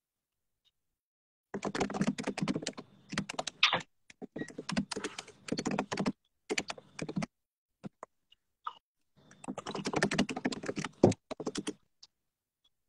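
Typing on a computer keyboard: several quick bursts of rapid key clicks with short pauses between them.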